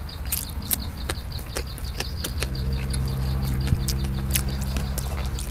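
A person chewing food close to the microphone: scattered wet mouth clicks and smacks. A steady low hum comes in about halfway through.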